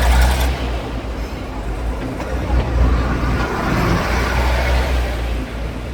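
Diesel railcar train on Taiwan's Pingxi Line passing close by, a steady low engine rumble with the noise of its running gear.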